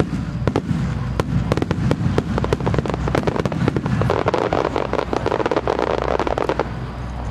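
A starmine barrage: a rapid string of fireworks bangs, several a second. About four seconds in, the bangs come thicker and merge into a dense crackle. It stops abruptly about a second before the end.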